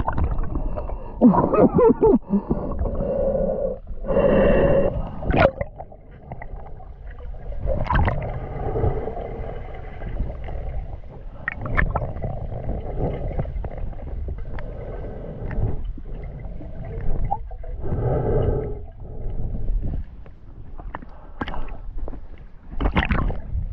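Heavy breathing through a snorkel with water gurgling and sloshing, heard muffled, with a few short knocks and muffled vocal sounds.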